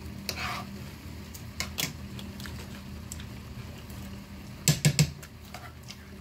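Plastic fork clicking and scraping against a clear plastic salad container while salad is chewed. The loudest part is a quick run of three sharp clicks a little before five seconds in.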